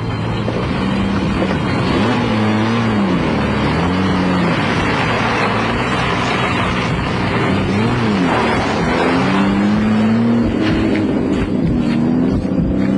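Car engine running with its pitch rising and falling several times, over a steady haze of traffic noise.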